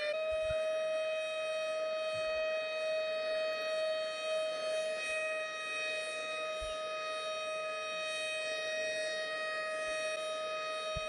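Ship's alarm siren sounding one long, steady tone at a constant pitch, just after winding up.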